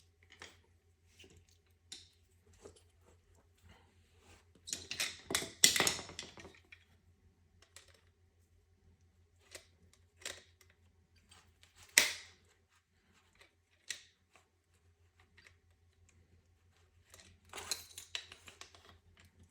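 Light clicks and metallic rattles from handling a fuel injector, its retaining clip and small hand tools on a fuel rail. The clicks come in a busier cluster about five seconds in and again near the end, with one sharp click midway.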